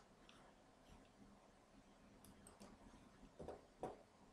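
Near silence with a few faint computer mouse clicks, the two loudest close together near the end.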